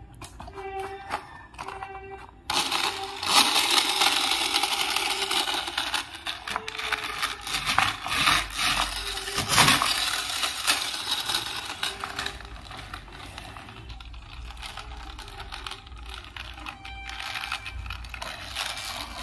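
A hard plastic toy truck being handled and turned over: a dense run of rustling, clicks and light plastic knocks, loudest from a couple of seconds in until about halfway, then quieter clicking. Short pitched notes sound in the first couple of seconds.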